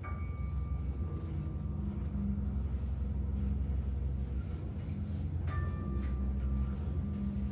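Free-improvised music from a piano, bass clarinet, double bass and drums quartet: a low sustained drone with a bell-like metallic tone struck at the start and again about five and a half seconds in, each ringing on.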